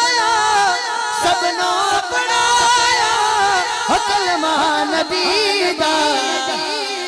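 A man singing a manqabat, a devotional song in praise of Ali, into a microphone. He draws the words out in long wavering notes, and other men's voices sing along.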